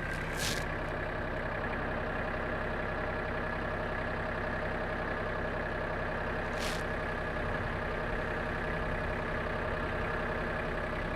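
Mahindra Max compact tractor's diesel engine running at a steady speed as the tractor moves forward, off the detached backhoe. Two short hissing ticks, about half a second in and near seven seconds.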